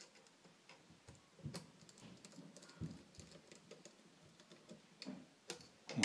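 Faint, irregular little clicks and taps of a hand screwdriver turning a small M3 screw into the 3D-printed plastic handle of a quick clamp, with a couple of louder clicks near the end.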